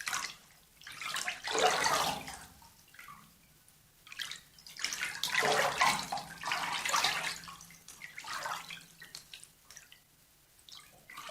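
Water splashing and sloshing in a bathtub in irregular bursts, the loudest about two seconds in and again around five to seven seconds, with quieter gaps between.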